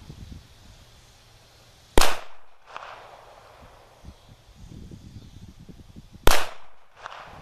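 Two pistol shots from a CZ 82 firing 9x18 Makarov, about four seconds apart, each followed under a second later by a fainter echo.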